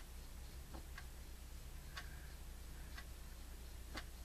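Faint clock ticking, about one tick a second, over a low steady hum.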